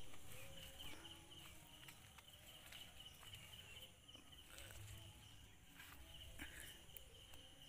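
Near silence: faint open-air ambience with a thin, steady high-pitched tone.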